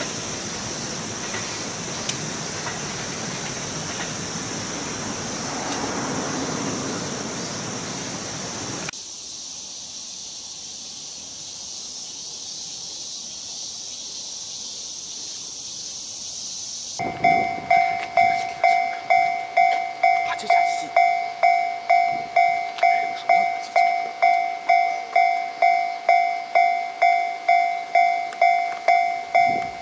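Japanese railroad crossing alarm ringing: loud, even electronic dings about two a second, starting about halfway through. Before it, a steady rushing noise as an electric local train approaches, then a quieter stretch.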